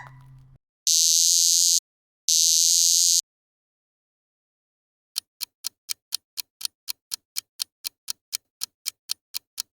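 Cicada buzzing in two short, high-pitched bursts of about a second each. After a pause, a clock ticks steadily, about four ticks a second, as a quiz countdown timer.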